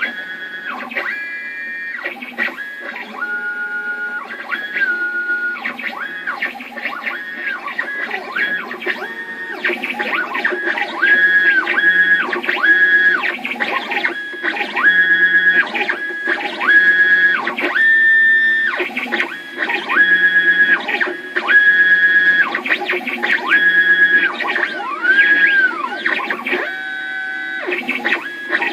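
Stepper motors of a small CNC machine moving a pen, with no cutting noise: a run of whining tones that start and stop every fraction of a second, jump between pitches and sweep up and down in arcs. It gets louder about ten seconds in.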